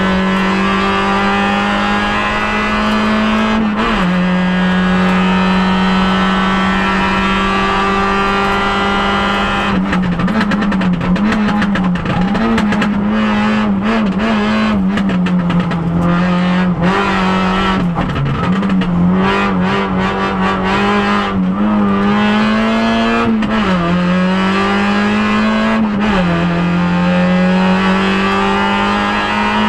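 Peugeot 106 group N rally car's 1.6-litre four-cylinder engine heard from inside the cabin, running hard at high revs. The pitch climbs and drops back at upshifts about four seconds in and again near the end. In the middle stretch the revs rise and fall repeatedly as the driver lifts off and shifts down through bends.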